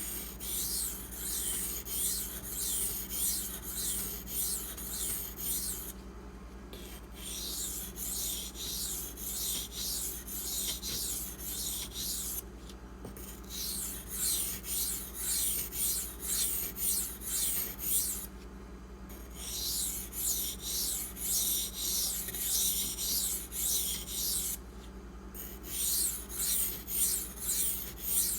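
Maxamet steel knife blade stroked across a friable aluminum oxide sharpening stone loaded with slurry, a gritty rasping scrape about two to three strokes a second. The strokes come in runs of several seconds with brief pauses between. The slurry is working the apex to plow down a burr.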